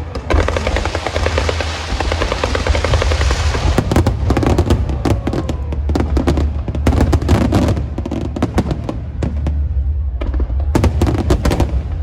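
Strings of firecrackers and fireworks going off: a dense, rapid crackle for about the first four seconds, then clusters of sharp bangs in bursts, over a steady low hum.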